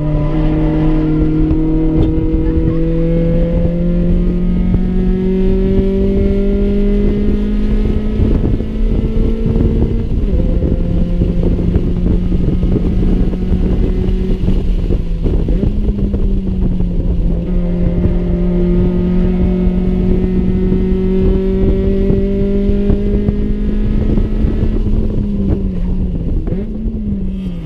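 Honda Civic's SOHC D16A6 four-cylinder engine pulling hard around a track lap, heard from inside the cabin with wind and road noise. The engine note climbs slowly through each gear, with steps in pitch at gear changes about ten and sixteen seconds in and again near the end.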